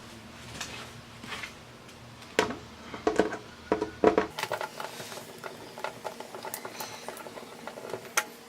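Irregular small clicks and ticks of a hand screwdriver backing T20 Torx screws out of a car door handle, with a few sharper clicks about halfway through.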